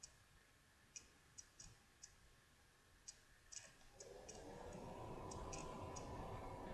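Near silence with faint, irregular light clicks from trading cards being handled. About four seconds in, a faint steady hum comes in.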